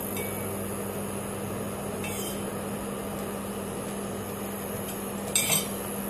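Preethi induction cooktop humming steadily as it heats a rinsed, still-wet pressure cooker, with a faint click about two seconds in and a sharp metal clink near the end.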